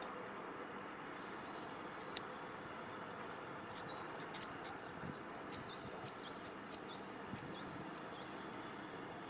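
A small bird chirping over a steady outdoor background hiss: a few scattered calls, then a quick run of about six sweeping chirps in the second half.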